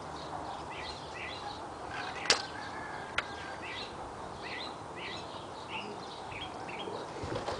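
Small birds chirping over and over in short, quick notes. Two sharp clicks come a little over two seconds in and about a second later; the first is the louder.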